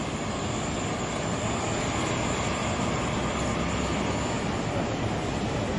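Steady city street traffic noise: cars, taxis and a bus running along a busy avenue, an even, unbroken rumble and hiss.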